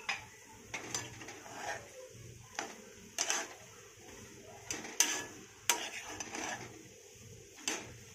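A utensil scraping and knocking against a kadhai as cooked spiced potato filling is stirred: a dozen or so irregular scrapes and clinks, the loudest about five seconds in.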